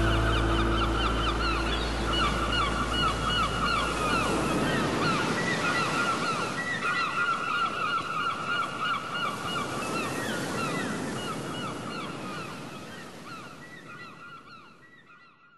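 A flock of gulls calling in dense, overlapping short cries over steady surf, with a guitar band's last chord dying away in the first few seconds. The whole thing fades out to silence near the end.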